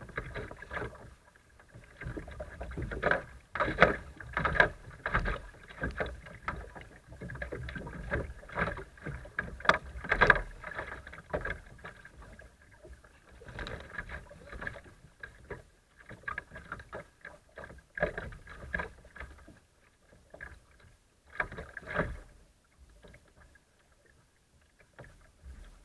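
River water splashing and slapping against a plastic kayak's hull as it runs through choppy riffles, in irregular bursts. The splashing is busiest in the first half and thins out later, with one more burst a few seconds before the end.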